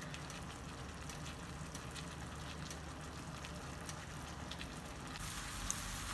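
Shrimp in a honey-soy marinade sizzling in a frying pan as the sauce reduces down to a sticky glaze, with scattered small pops and crackles. The sizzle turns louder and brighter about five seconds in.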